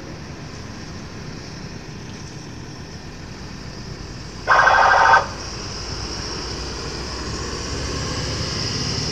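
Police-style vehicle horn sounding one loud, short blast of under a second, over the low, steady running noise of a vehicle engine.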